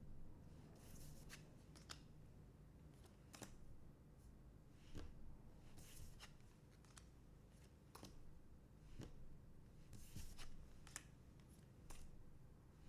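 Trading cards being handled and flipped through one at a time: faint slides and clicks about once a second.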